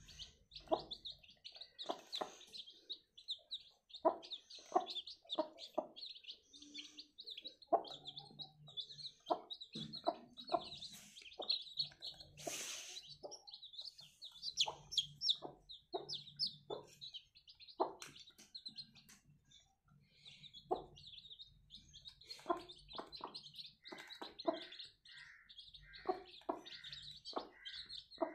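A brood of newly hatched chicks peeping continuously in high, rapid chirps, with a hen clucking in short, low calls repeated every second or so.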